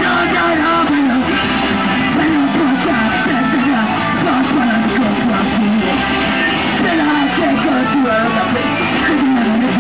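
Hardcore punk band playing live, with distorted electric guitar, drums and shouted vocals, in a loud, steady mono recording.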